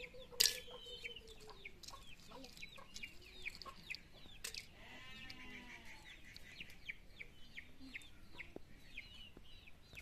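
Faint clucking of chickens under many short, high chirps of small birds. A single sharp click comes about half a second in.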